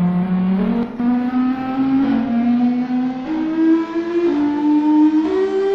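Emergency alert alarm tone: a buzzy, pitched tone rich in overtones, stepping through a slow sequence of held notes, each about half a second to a second long, mostly climbing in pitch.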